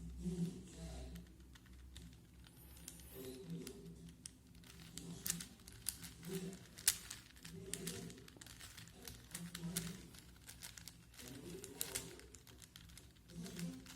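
Plastic 4x4x4 Rubik's cube being turned by hand: irregular clicking and clacking of its layers as they rotate, coming in quick runs.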